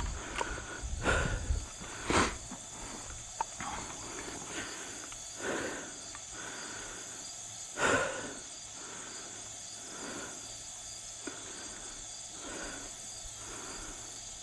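Insects chirping steadily in a high, even drone, with a few short noises over it, the loudest about two and eight seconds in.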